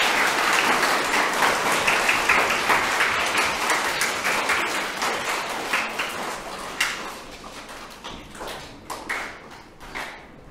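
Audience applauding, then thinning out and dying away over several seconds into scattered claps, with footsteps and knocks on the stage floor near the end.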